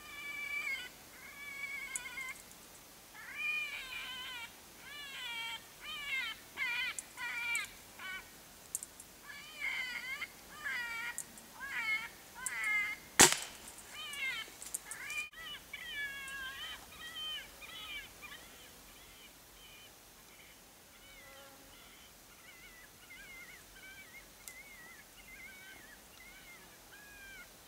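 Repeated short, wavering, cat-like squalling calls, with a single sharp shot from a Benjamin Sheridan Super Streak .22 air rifle about halfway through. The calls carry on, fainter, after the shot.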